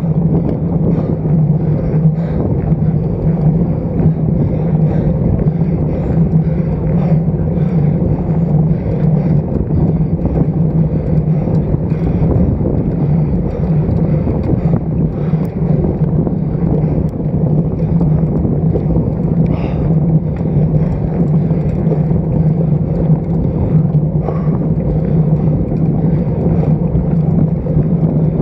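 Wind rushing over the microphone of a Shimano CM-2000 action camera mounted on a moving road bike's stem: a steady, loud rush with a low hum underneath.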